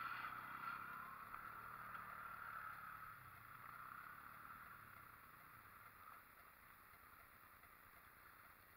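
Faint ATV engine running far off, its sound fading away over the first few seconds until little is left.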